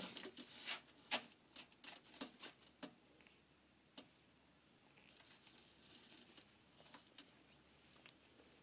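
Faint scratchy clicks and scrapes of a lace monitor's claws on the enclosure ledge and on trouser fabric as it climbs. The clicks come in a quick run for the first few seconds, with one more about four seconds in, then fade to near silence.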